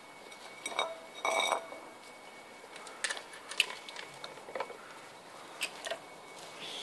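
Scattered light clinks and clicks of dogs' feeding bowls and dry kibble being nudged about, with one louder rattle about a second and a half in.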